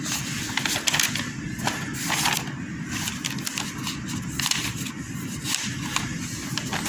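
Paper pages of a wiring-diagram book being flipped, a run of irregular rustles and soft flaps, over a steady low background hum.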